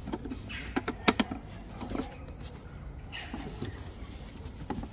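Sharp clicks and knocks of a hard plastic tail-light unit being handled and offered up to the car's rear: a cluster of taps about a second in, another around two seconds, then a soft rustle.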